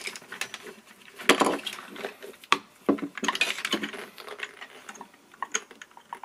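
Hands fitting a battery pack and its plug to the underside of a plastic RC toy truck: scattered plastic clicks, taps and rustling, with a few sharper clicks.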